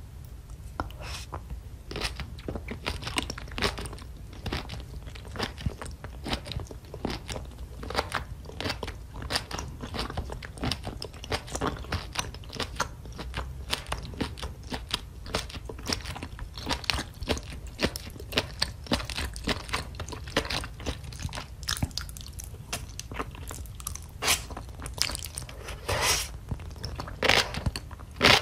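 Close-miked mouth sounds of a person chewing spicy sauced octopus: a steady run of short clicks and smacks, louder in the last few seconds, over a low steady hum.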